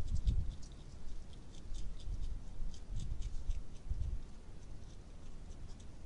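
Hedgehogs chewing and crunching dry food: many quick, irregular little clicks, over a low uneven rumble.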